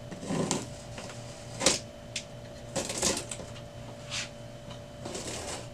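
Cardboard box being cut open with a box cutter: a series of short rasping slices through packing tape and cardboard, the sharpest about a second and a half in, over a faint steady hum.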